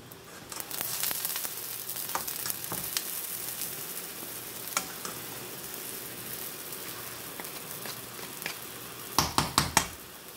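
Rice noodles, chicken and vegetables sizzling in a large nonstick pan while being stirred and tossed with spatulas: a steady frying hiss with scattered clicks and scrapes of the utensils against the pan. Near the end, four quick, louder knocks.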